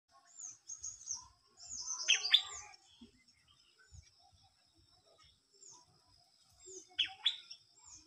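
White-throated fantail calling: a run of short, high, downward-slurred notes, with two louder, sharper calls about two seconds in and again near the end.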